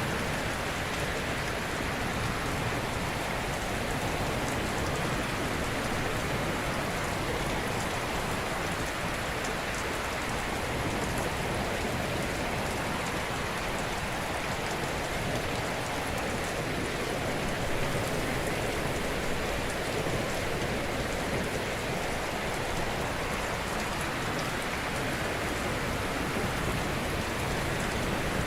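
Ocean surf: waves breaking gently on a shore, a steady rushing wash of noise that swells and eases only slightly.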